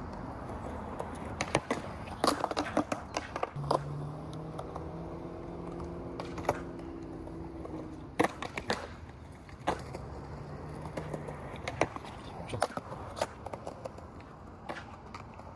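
Skateboard rolling on concrete with sharp clacks from the board, then a boardslide along an angled rail: a steady scraping hum for about four seconds in the middle. It ends in a loud clack as the board comes off, and more rolling and clacks follow.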